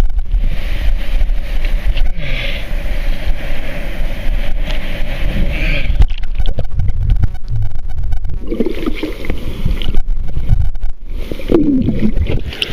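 Sea water sloshing and churning against the microphone of a waterproof camera in the surf, a loud low rumble. The sound turns muffled and gurgling in stretches as the camera dips underwater.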